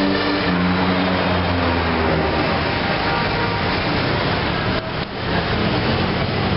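Steady, loud street traffic noise with vehicle engines running, and a brief drop in level about five seconds in.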